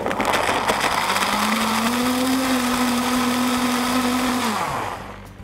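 Countertop blender running, blending milk, frozen pineapple, kiwi and baby spinach into a thick smoothie. It starts suddenly, its motor pitch climbs slightly after about a second and holds steady, then winds down and stops near the end.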